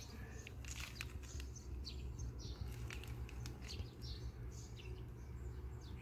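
Faint outdoor ambience: small birds chirping sporadically, short high chirps scattered throughout, over a steady low rumble.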